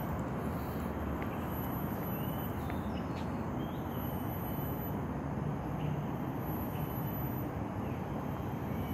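Steady hum of distant city road traffic, with a few faint short chirps from birds.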